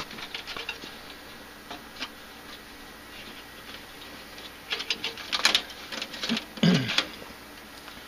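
Hands working inside a gas furnace cabinet: small clicks and rustles of wiring and sheet-metal parts being handled. A cluster of louder rattling knocks comes about five to seven seconds in.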